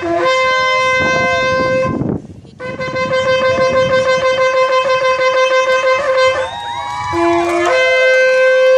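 Shofar blown in long, loud held blasts on one steady note, with a short break about two seconds in. Around six and a half seconds the sound swoops up in rising slides before settling into another long held blast.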